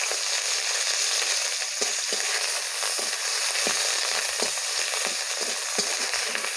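Onion paste frying in hot oil in a kadai, a steady loud sizzle, with repeated short scrapes of the metal spatula against the pan as it is stirred, about two a second.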